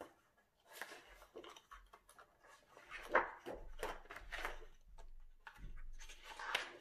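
Paper pages of a spiral-bound colouring book being turned by hand: a series of rustling, sliding paper sounds, several in a row, the loudest about three seconds in.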